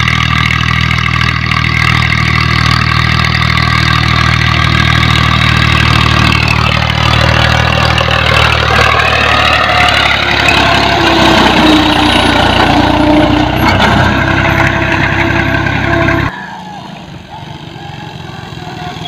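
Farm tractor's diesel engine running steadily under load while pulling a seed drill, its pitch wavering in the middle as it passes close. The sound cuts off suddenly about sixteen seconds in, leaving a quieter motorcycle engine approaching.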